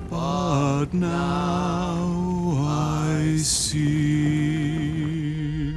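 Two men's voices singing a hymn in harmony in slow, long-held notes, with a short hiss about three and a half seconds in.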